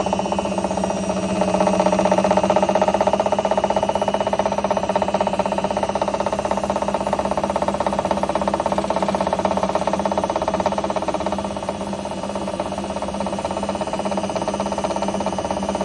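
IFB washing machine in its spin cycle: a steady hum with a fast, even rattle, the spinning noise treated as a fault. The level eases off a little about three quarters of the way through.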